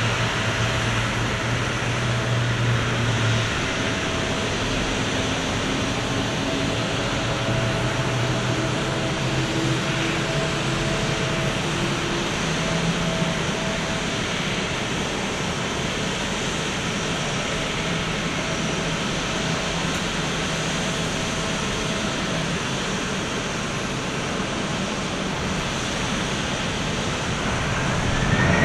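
Airbus A350-900 airliner during pushback: a steady, even jet hiss with a faint low hum. Near the end a whine rises in pitch and the noise grows louder as an engine begins to spool up.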